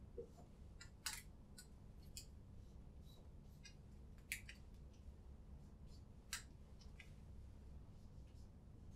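Dry-erase marker writing on a whiteboard: a few faint, short squeaks and taps, the clearest about one, four and six seconds in, over a low steady room hum.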